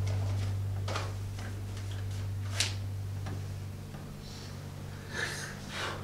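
Steady low electrical hum, with a few soft clicks and two short breathy sniffs near the end, as a speaker pauses, apparently composing himself.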